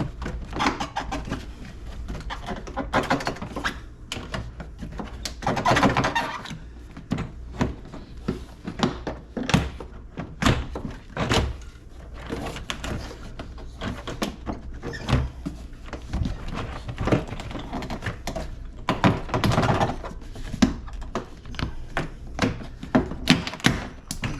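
Plastic interior door panel of a Jeep Liberty being lifted and worked off the door after its clips are released: many knocks and thunks of hard plastic, with longer stretches of scraping and rattling about half a second in, around six seconds in and near twenty seconds in.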